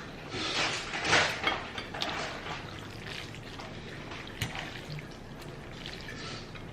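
Spaghetti being eaten close to the microphone: wet slurping and mouth sounds, loudest in the first second or two, with a few small clicks later on.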